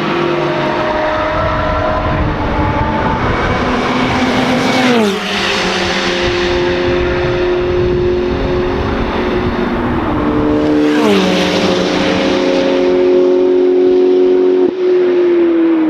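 Racing cars' engines running hard past trackside, two close pass-bys about 5 and 11 seconds in, each with the engine pitch dropping sharply as the car goes by.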